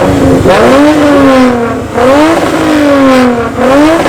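A car engine revved in quick blips about three times. Each rev climbs fast and then falls back slowly.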